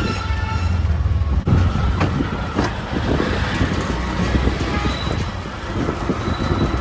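Road traffic: motor vehicles running close by, with a steady low engine rumble under general street noise.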